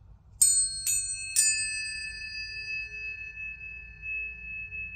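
Tuning forks struck three times in quick succession, each strike a bright metallic ping that settles into a pure, steady high ringing tone; two tones ring on together after the last strike.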